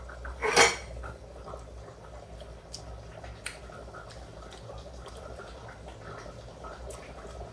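Quiet kitchen sounds while the cauliflower gravy is tasted: a short breathy sound about half a second in, then a few faint clicks over a low steady hum.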